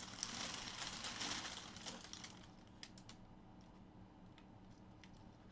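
Wrapping paper inside a sneaker box rustling and crinkling as it is handled for about two seconds. It is followed by a few faint ticks and taps over a low hum.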